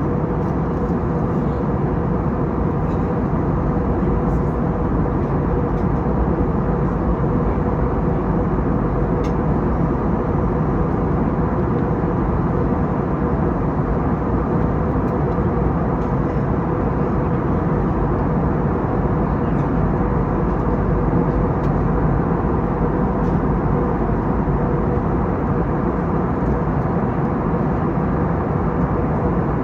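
Steady cabin noise of an Airbus A321neo in flight: the drone of its Pratt & Whitney PW1100G geared turbofan engines and rushing airflow, with a steady hum running under it.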